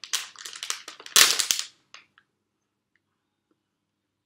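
Foil snack packet crinkling as it is pulled open, with a sharp pop a little over a second in as the seal tears apart.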